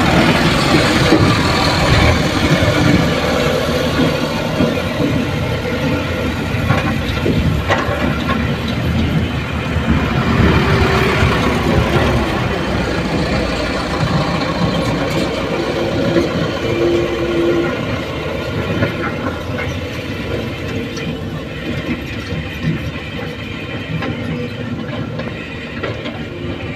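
Diesel dump truck engines running as loaded trucks move off across the dirt, with an excavator working nearby; a steady, heavy mechanical noise.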